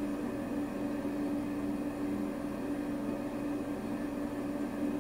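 Steady background hum with one strong low tone over an even hiss. It does not change, and no sharp sounds stand out: room tone.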